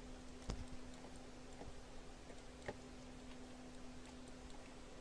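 A few faint, sharp clicks, about half a second, a second and a half and nearly three seconds in, over a steady low electrical hum and hiss.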